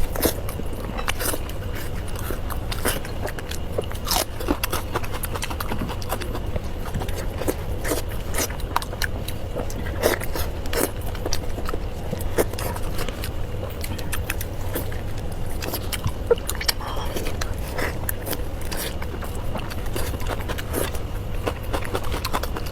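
Close-miked chewing and lip-smacking of a person eating pork large intestine stuffed with pig brain: many small wet clicks and smacks, over a steady low hum.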